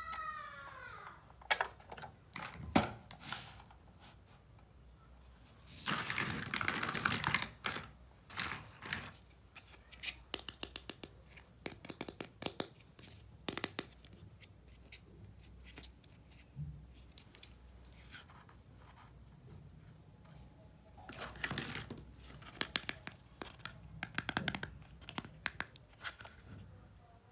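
Small plastic toy kitchen pieces clicking and tapping as they are handled and set down, with two stretches of rustling packaging, one about six seconds in and one near the end. A short falling tone sounds at the very start.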